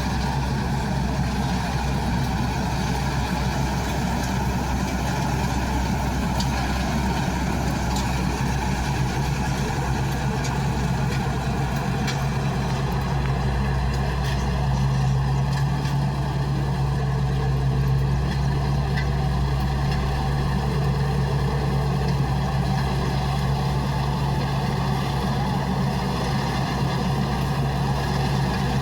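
Rice combine harvester running steadily: a continuous engine drone with a strong low hum, a little louder around the middle.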